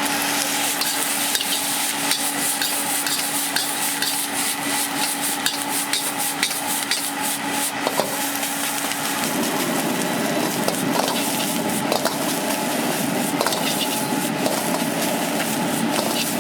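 Stir-frying in a wok: food sizzling steadily while a metal spatula scrapes and clinks against the wok again and again.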